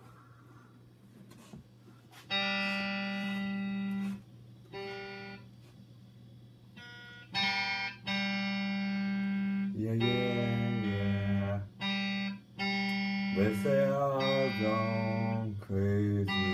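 Electric guitar being played: after a quiet start, chords ring out for a couple of seconds at a time with short gaps, then play on more steadily, with notes wavering in pitch near the end.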